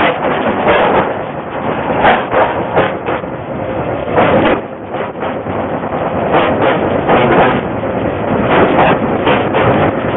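Train of empty coal wagons rolling past close by: steel wheels running loudly on the rails, with a string of irregular clacks as the wheel sets pass over rail joints.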